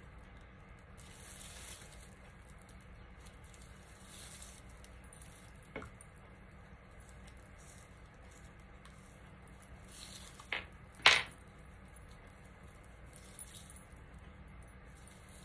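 Dry rustling of raffia strands being handled and pushed into a bow, in short patches, with a few sharp taps: a faint one about six seconds in and two louder ones close together around ten and eleven seconds in.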